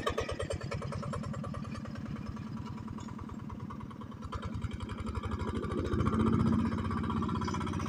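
Yanmar YA80 8-horsepower single-cylinder diesel engine, on a hand tractor converted to a four-wheel ride-on tractor, running under way with an even, rapid beat. It grows fainter as the tractor moves off, then louder again about six seconds in.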